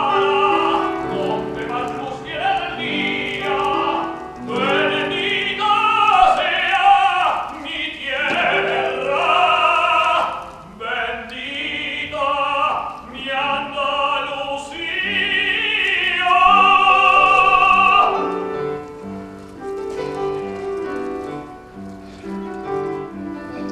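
Operatic singing with wide vibrato over piano accompaniment, in a Spanish opera duet. About eighteen seconds in the voice eases off and the piano carries on more quietly.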